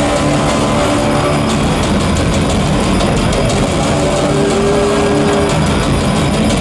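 Loud soundtrack of an ice-hockey arena's pre-game light show played over the PA: a dense, steady low rumble with a few held tones, one of them rising out of the mix about four seconds in.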